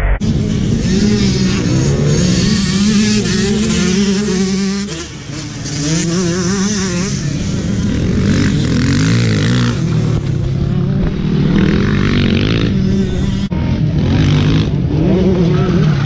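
Several motocross dirt bikes racing past, their engines repeatedly revving up and falling back in pitch as the riders accelerate and shift.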